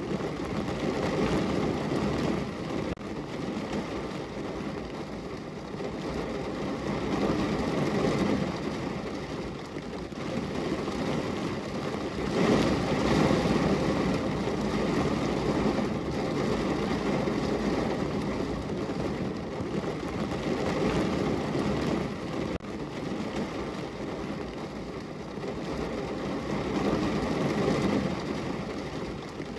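Rain falling against a window: a steady rushing noise that swells and eases every several seconds.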